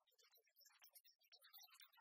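Near silence, with faint, scattered high ticks and tinkles fading in.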